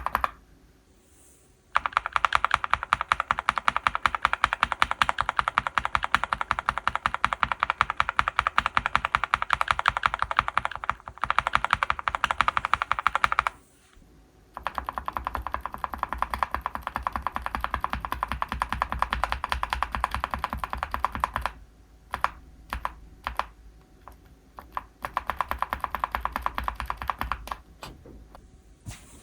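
Fast typing on a mechanical keyboard fitted with linear switches, in three long runs of rapid keystrokes broken by short pauses, with a few single key presses in between.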